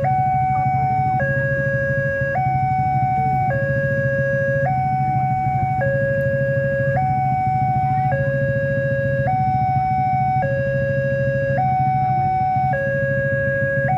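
Railroad level crossing's electronic warning alarm sounding a steady two-tone signal, a higher tone and a lower tone taking turns about every second, while the barrier is down: the warning that a train is coming.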